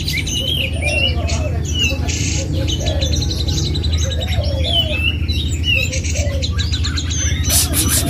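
Several caged songbirds singing at once: quick chirps and whistled phrases, rapid trills of fast evenly repeated notes, and lower warbling notes underneath, over a steady low hum.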